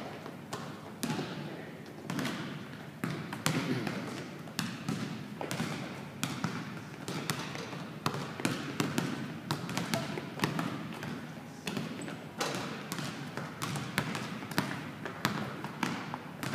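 Several basketballs bouncing on a hardwood gym floor: many irregular thuds from players dribbling at the same time.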